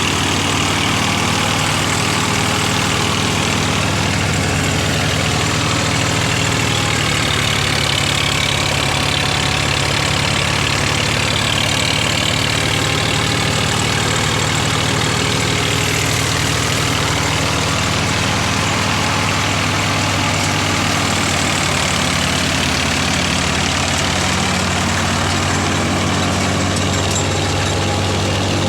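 Wheat threshing machine and its driving engine running steadily: a low engine drone under a continuous rushing hiss.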